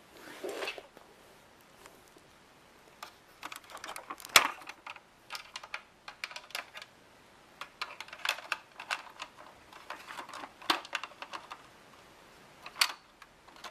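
Plastic toy figures and a toy pickup truck being handled on a wooden floor: irregular light clicks and taps, with one sharper knock about four seconds in.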